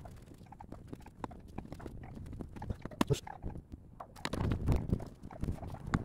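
Irregular light clicks and knocks of a wrench working the refrigerant-pipe flare nut at an air conditioner outdoor unit's service valve, with a louder low rustling rumble about four seconds in.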